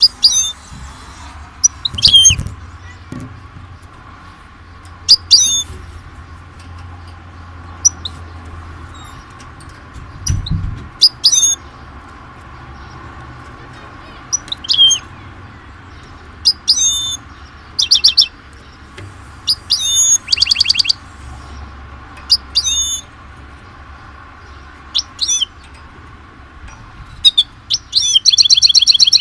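Small bird calling: short, high, curling chirps every second or two, broken by a few quick trills, the longest near the end.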